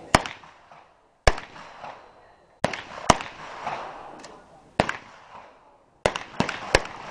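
MP5-type submachine guns fired single shot by several shooters: about ten sharp shots at uneven spacing, each trailing off in a short echo.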